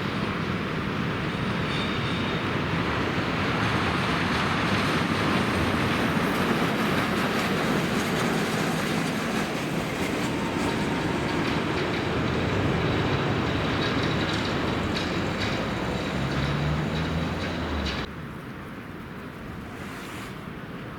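A train passing: a steady rolling noise with a faint high wheel squeal, cutting off sharply near the end.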